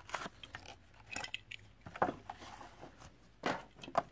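Stiff plastic blister pack and cardboard backing of a Hot Wheels card crackling and crinkling in the hands, a series of short irregular crackles, as the die-cast car is worked out of the package.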